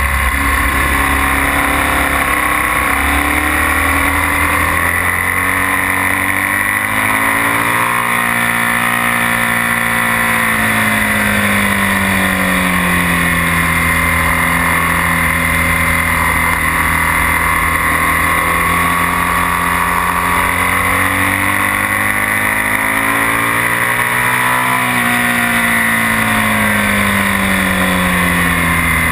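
BMW R1200S air/oil-cooled boxer twin running hard at speed, its note climbing and falling twice with throttle and gear changes, under heavy wind rush on the microphone.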